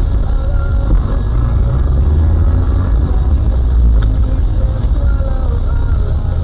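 Steady low rumble of a moving car: engine and tyres on the road.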